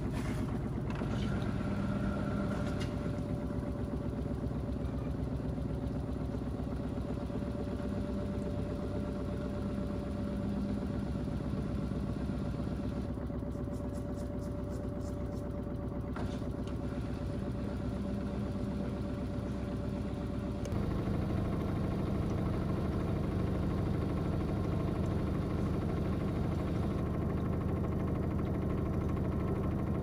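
LG DirectDrive front-loading washing machine running its wash with a heavy carpet load in the drum: a steady motor hum with a thin whine. About two-thirds of the way through, the sound turns louder and fuller.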